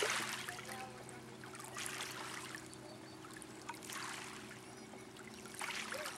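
Water lapping and trickling, swelling softly a few times, over a steady low motor hum.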